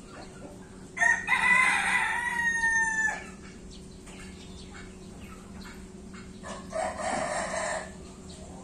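A rooster crowing once, a pitched call of about two seconds that drops at the end, followed about six seconds in by a shorter, fainter call.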